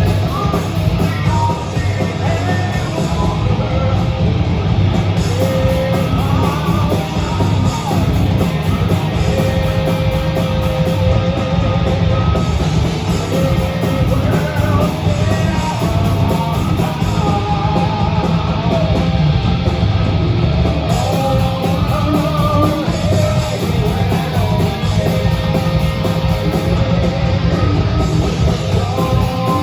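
A live rock band playing loud, heavy music with accordion, and a voice singing over it.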